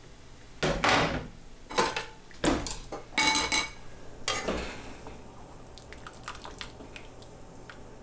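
Kitchen clatter of metal pots and dishes: about five loud clanks in the first half, one with a short metallic ring, then a few light ticks and clicks.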